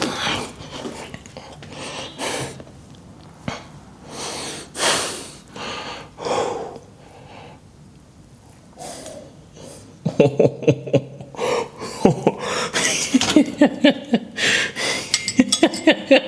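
A man breathing hard through the last reps of a cable shoulder press: forceful rushing exhalations and gasps, about one every second or so for the first ten seconds. After that, indistinct talking takes over.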